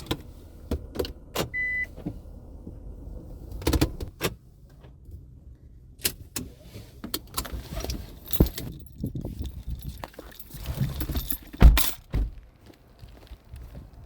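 Keys jangling amid scattered clicks and knocks of handling inside a car, with a short high beep about two seconds in and a loud thump near the end.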